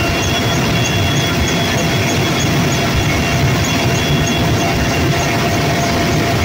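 Helicopter in flight heard from inside the cabin at the open door: loud, steady engine and rotor noise with a deep rumble and a thin, steady high whine over it.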